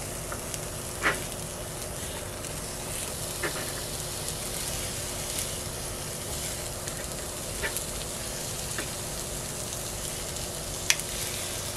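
Zucchini pieces sizzling on the hot nonstick plate of a Dash Mini Griddle, a steady hiss as they are set down by hand. A few light taps as pieces land, the sharpest about a second in and near the end.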